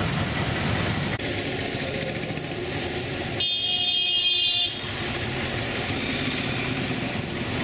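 Auto-rickshaw ride in street traffic: a steady mix of small engine and road noise, with a vehicle horn sounding once for just over a second, about three and a half seconds in.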